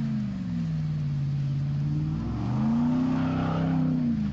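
Chevrolet Silverado pickup's engine revving up and down while the truck spins donuts on muddy grass. About two and a half seconds in the revs climb, and the spinning tyres throw mud and turf with a rush of noise over the engine.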